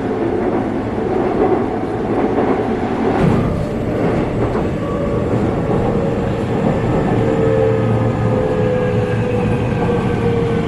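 Seoul Metro Line 2 subway train running, heard from inside the car: a steady rumble with a motor whine that slowly falls in pitch over the second half. A single clack from the wheels or car about three seconds in.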